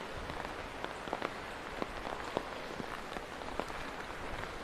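Steady rain falling, with separate drops landing in short, irregular clicks.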